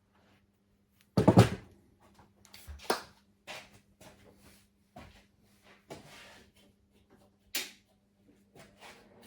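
Separate knocks and clatters of workshop gear being handled while a stick welder is set up, the loudest a little over a second in and the rest scattered a second or so apart.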